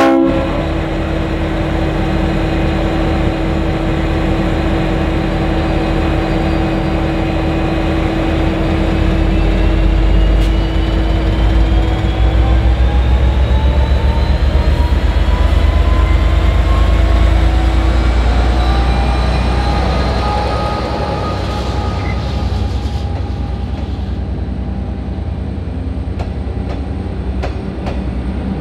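V/Line N class diesel-electric locomotive N453 with its EMD two-stroke V12 engine, pulling away under power, with a rising whine as it gathers speed. It is loudest as it passes about halfway through, then its passenger carriages roll by with wheels clicking over the rail joints.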